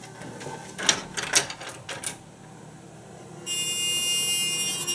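A few sharp clicks, then about three and a half seconds in the elevator car panel's alarm buzzer sounds loudly with a harsh high buzz and cuts off near the end.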